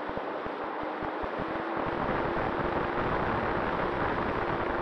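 Rushing airflow picked up by a camera mounted on an electric foam RC plane in flight, with the motor and propeller running underneath as a faint steady tone.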